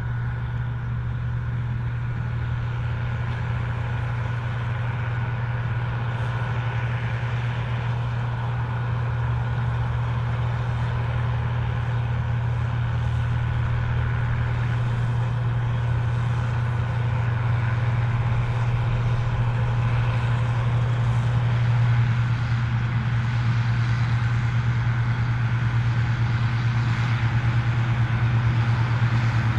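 Case IH 1455 XL tractor's six-cylinder diesel engine running steadily with a strong low engine note, slowly growing louder.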